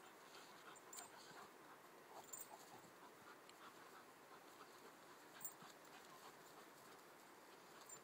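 Faint sounds of a German Shepherd and an English Springer Spaniel puppy at play: panting and scattered short whimpers, with a few small clicks.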